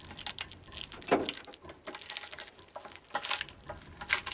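Irregular clicks, knocks and clinks of plastic and metal parts and hand tools being handled while a CRT television is pried apart.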